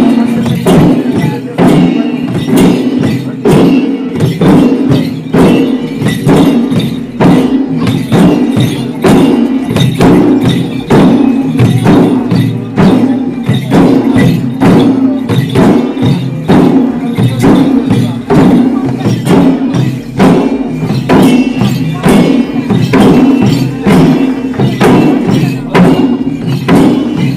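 A group of chyabrung, the Limbu double-headed barrel drums, beaten together by hand in a steady, even rhythm for the kelang dance.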